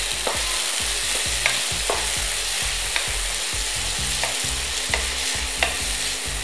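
Chopped tomatoes sizzling in hot oil in a nonstick frying pan while a wooden spatula stirs them, with a light knock of the spatula on the pan roughly once a second.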